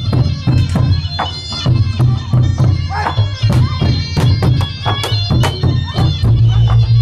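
Thai traditional battle music: large barrel drums beaten hard with sticks in a fast, steady rhythm, with a reedy wind melody over them.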